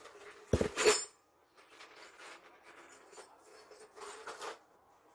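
Hand tools and pipe parts clattering as they are handled during a pipe repair: a loud burst of clinks about half a second in, scattered small knocks, and a second smaller cluster of clinks near four seconds.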